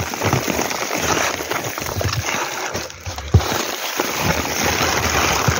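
Foil-lined bubble-wrap packaging being handled and pulled back inside a cardboard box, with a steady crinkling rustle and a few sharper crackles.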